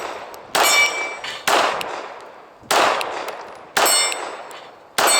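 Five 9mm Glock 17 pistol shots about a second apart, each hit answered by the bright clang and ring of a struck steel target plate that fades before the next shot.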